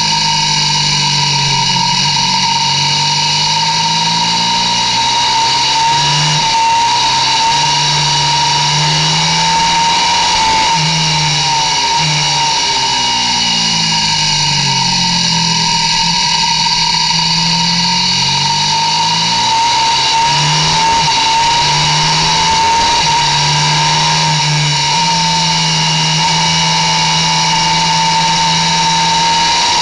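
Ducati 1198 superbike's V-twin engine at high revs, heard from on board, its pitch rising and falling again and again as the rider accelerates, brakes and shifts through the corners.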